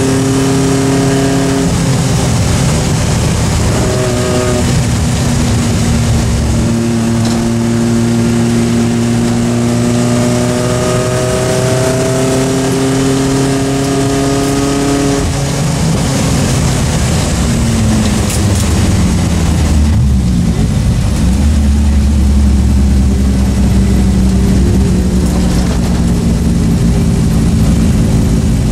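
Triumph Spitfire Mk3's 1296 cc four-cylinder engine, heard from inside the cabin, pulling up through the gears with several gear changes. About two-thirds of the way through, the revs fall away as it eases off, and it then runs steadily at lower revs.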